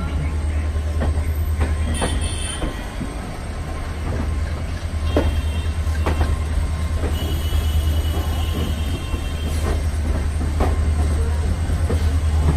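Passenger coaches of a diesel-hauled express train rolling through a station yard, heard from a coach window. A deep steady rumble runs under uneven sharp clacks as the wheels pass over rail joints and points, with brief faint wheel squeals about two seconds in and again past the middle.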